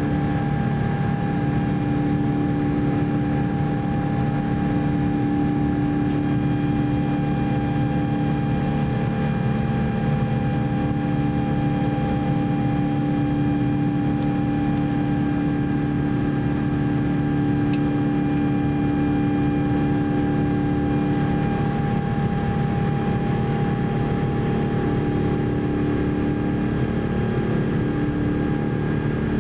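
Cabin noise of an Airbus A350-900 climbing after takeoff: a steady rush of airflow and Rolls-Royce Trent XWB engine noise, with several steady hum tones running through it.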